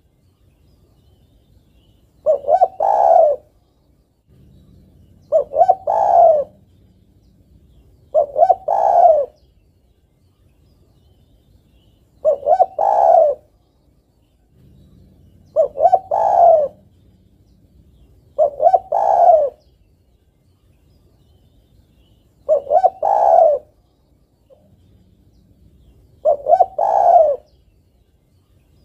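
Female spotted dove cooing to call a male: eight short phrases of a few coos each, about a second long, repeating every three to four seconds.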